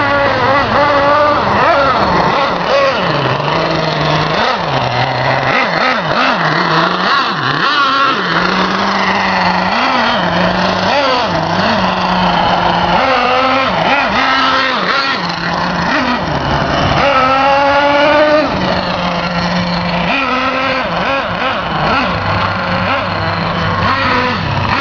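Simson S50 moped's two-stroke single-cylinder engine running and being revved, its pitch rising and falling, with a clear climb in revs about two-thirds of the way through.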